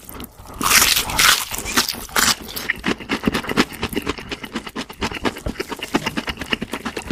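Close-miked crunching of crispy fried food: a loud crackling bite about a second in, then a fast run of crunchy chews.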